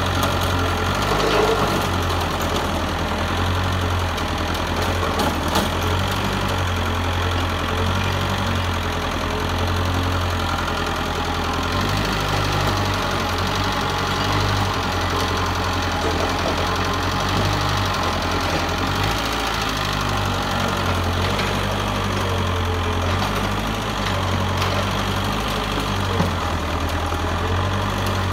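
Mitsubishi excavator's diesel engine running steadily under work, its low note shifting slightly up and down in strength.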